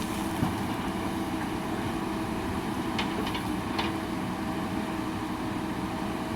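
JCB backhoe loader's diesel engine running steadily, with a few short knocks: one near the start and three close together around the middle.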